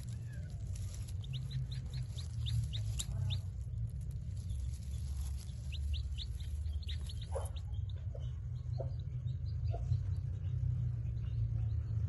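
Chicken chick hatching from its egg and peeping: quick runs of short, high, falling peeps, then a few lower calls, over a steady low rumble.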